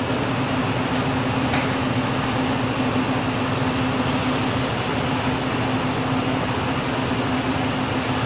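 Steady mechanical rushing noise with a low, even hum, typical of a commercial kitchen's ventilation fan running.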